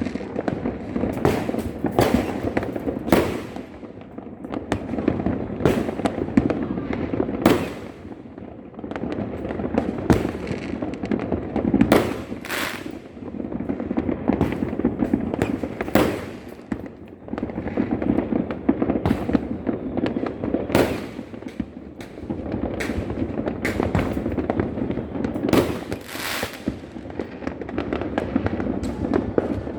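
Many fireworks and firecrackers going off at once: sharp bangs roughly once a second over a constant crackle and rumble of more distant bursts.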